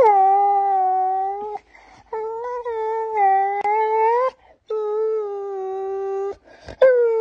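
A young black dog whining in long, drawn-out howling cries, four in a row, each starting higher, dropping and holding. It is a protest at not being allowed to chew her owner's hand.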